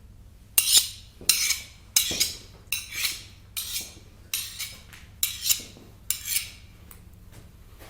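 Steel knife blade scraped against metal in about ten short, even strokes, roughly one every two-thirds of a second, like a blade being whetted; the strokes stop a little over a second before the end.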